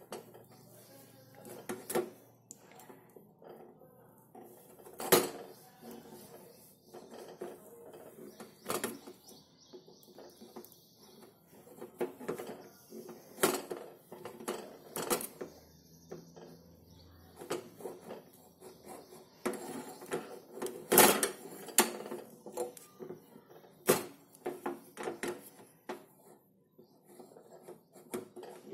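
A knife cutting set besan barfi in a round metal plate: the blade clinks against the plate at irregular intervals as each cut is pressed through.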